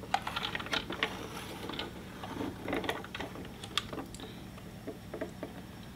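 Quiet plastic clicks, rattles and small knocks, scattered irregularly, as the back door of a Dickie Toys toy garbage truck is opened and worked by hand.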